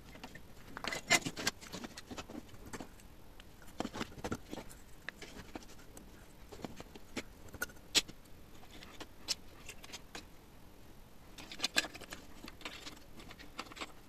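Scattered small clicks and rustles of hands handling soldered wires, a plastic clamp and the vacuum cleaner's opened plastic housing, in clusters about a second in, around four seconds, with a sharp click near eight seconds and another cluster near twelve seconds.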